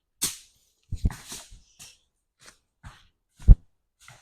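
A thrown object tumbling down a hillside: a string of irregular thuds and rustles, about seven hits, the heaviest thud about three and a half seconds in.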